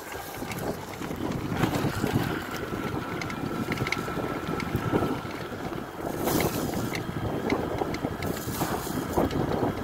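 Wind buffeting the microphone and the rumble of tyres on a dirt path as a front-hub-motor e-bike rides along at speed. Stronger gusts come twice in the second half.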